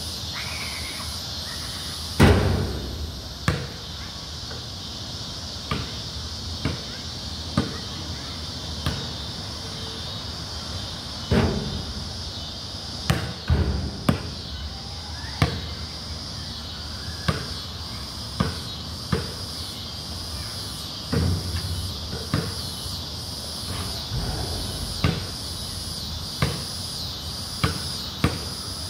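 Basketball bouncing on a concrete court in single, irregular bounces every second or two, with one louder thud about two seconds in, over a steady high drone of insects.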